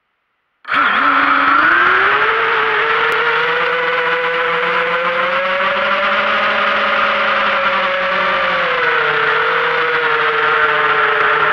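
FPV quadcopter's brushless motors and propellers whining, cutting in suddenly under a second in. The pitch climbs over the next few seconds as it lifts off, holds steady, then dips slightly near the end as the throttle eases.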